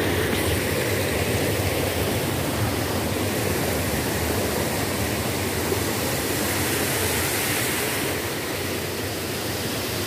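White water rushing and churning down a small waterfall cascade close by, a steady, even rush that eases slightly near the end.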